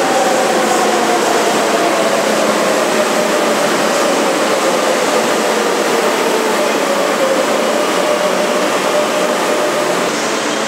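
Metro train pulling in along an underground platform: a steady rush of wheel and running noise, with the electric traction motors' whine falling slowly in pitch as the train slows.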